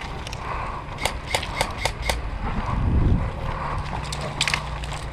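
Airsoft guns firing: a run of about five sharp shots a quarter second apart in the first two seconds, then a quick cluster of shots near the end. A low rumble swells briefly in the middle.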